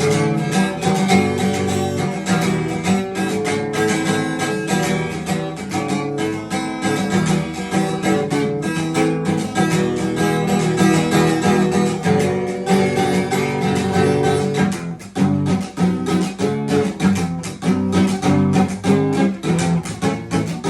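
Acoustic guitar strummed in a steady rhythm, with no singing; the playing thins out briefly about fifteen seconds in.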